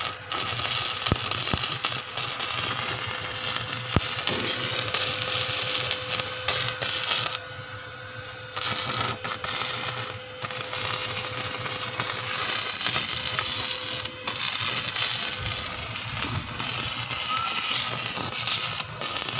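Stick (arc) welding: the electrode's arc crackling and sputtering steadily, powered by a YAMAPro ARC-300A DC inverter welder. The crackle drops away for about a second near the middle, then carries on.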